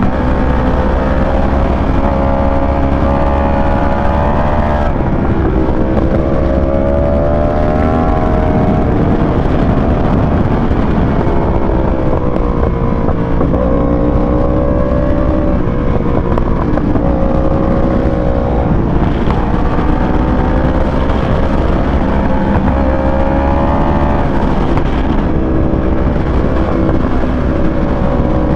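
Sport motorcycle engine heard from on board, its revs climbing for a few seconds and then falling away, again and again, through acceleration, gear changes and corners, over a steady wind rush on the microphone.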